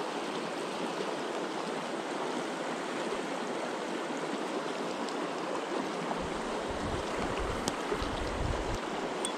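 Shallow river running over rocks and riffles, a steady rush of water; from about six seconds in, wind buffets the microphone in low gusts.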